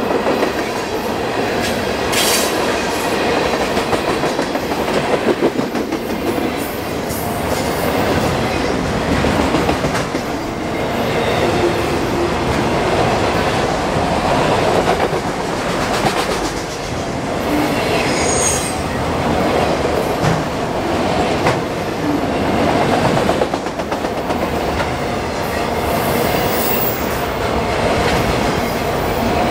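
Freight train cars rolling steadily past a grade crossing, the wheels clicking over the rail joints.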